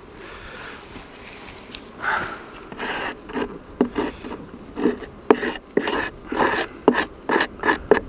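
Scraping on wood: a scraper worked over a wooden beehive part to clean it, in short repeated strokes at about two a second, starting about two seconds in.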